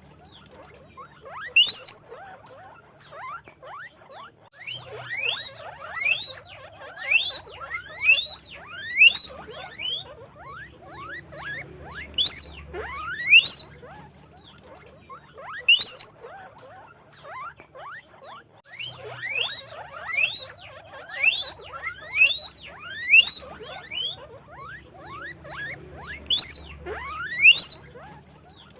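Guinea pigs wheeking: loud, rising, whistle-like squeaks repeated about once a second in runs with short pauses, over many fainter squeaks from other guinea pigs.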